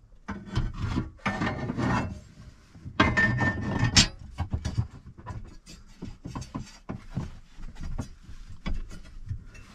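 Metal bracket scraping and knocking against the inside of a metal console safe as it is worked into place. Rubs and scrapes come first, the loudest about three to four seconds in, then a run of lighter taps.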